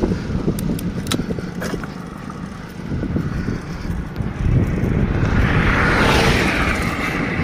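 Road noise on an open highway: a steady rumble of wind buffeting the microphone, with a passing vehicle's tyre and engine noise swelling up and fading about six seconds in.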